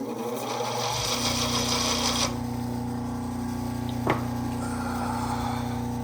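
Paper-wheel honing machine running at half speed. For the first two seconds or so, a stick of white polishing compound is pressed against the spinning wheel, giving a bright scraping noise. After that the motor hums steadily, with one short tick about four seconds in.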